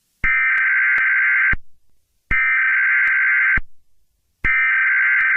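Emergency Alert System SAME header: three bursts of shrill digital data tones, each a little over a second long and about two seconds apart, the coded signal that opens an emergency alert broadcast.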